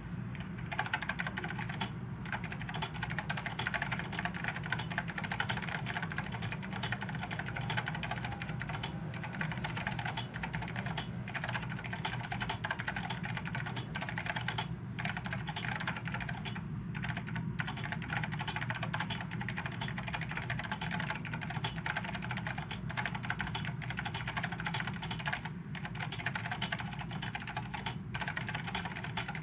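Typing on a Monterey K7S keyboard with Mitsumi KCM Type II square-mount linear switches and double-shot cubic-profile caps: a fast, continuous run of keystrokes with a few brief pauses. The main keys' white-housing switches are softer and more damped sounding.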